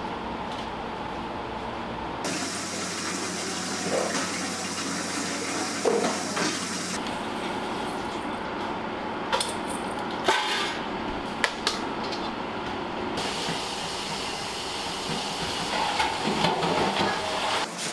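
Restaurant kitchen sounds: a steady rush of water or hissing steam, with a few sharp knocks of pots or utensils about six, ten and eleven and a half seconds in. The background changes abruptly several times.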